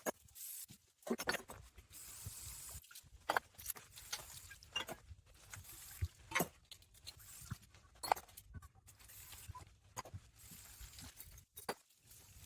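Irregular clinks and knocks of glass bottles and caps being handled while they are rinsed and sorted, with stretches of hissing noise between the knocks.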